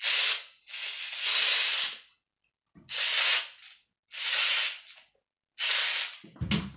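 Small wind-up toy train being wound: five short bursts of dense ratcheting clicks, one for each twist of the winder, with brief pauses between them. A low thump near the end.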